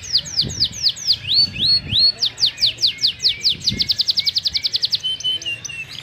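A domestic canary singing a fast song of repeated high, down-slurred whistles. About one and a half seconds in come a few rising notes, then the whistles speed up into a rapid trill. Short, lower notes close the phrase near the end.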